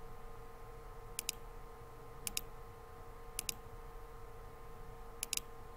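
Computer mouse buttons clicking in quick pairs, about four times, over a faint steady hum.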